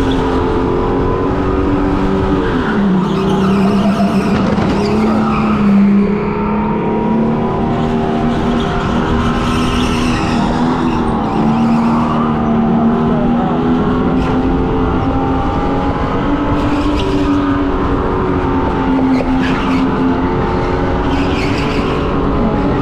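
Electric go-kart running at speed, heard from onboard: its motor whine rises and falls with speed through the corners, with short tyre squeals as the kart slides.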